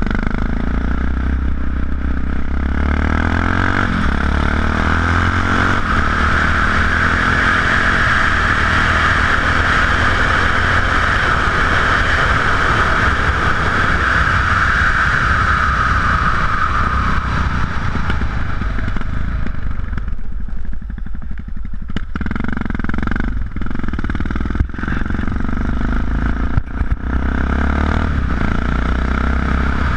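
Yamaha XT660X single-cylinder engine running through Leo Vince aftermarket exhausts while the bike is ridden along a road. A strong rushing noise carries over the engine for much of the first half and fades after about 17 seconds, and a few sharp knocks come in the last third.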